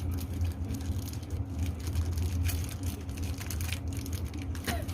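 Crisp krupuk crackers being crunched in the mouth, a dense run of short crunches over a steady low hum, with a brief gliding whistle-like tone near the end.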